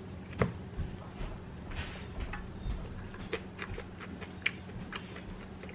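Eating sounds: scattered small clicks and taps as food is picked up and eaten, one sharper click about half a second in, over a steady low hum.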